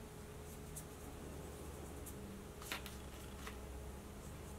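Faint strokes of a paintbrush blending acrylic paint on a rock, over a low steady hum, with one light click a little past the middle.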